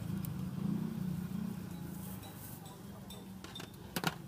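Low steady rumble of street traffic and motor engines, easing off after about two seconds. A few sharp metallic clinks, the loudest pair near the end, from utensils or a lid against the stall's aluminium pots.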